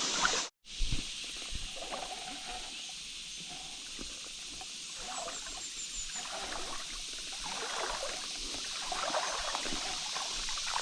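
Small creek's running water making a steady hiss, with scattered soft splashes and rustles.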